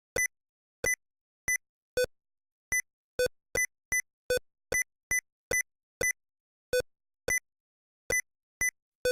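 Windows Sticky Keys beeps sounding as modifier keys are pressed: about eighteen short electronic beeps at uneven intervals, roughly two a second, shifting between a lower and a higher tone.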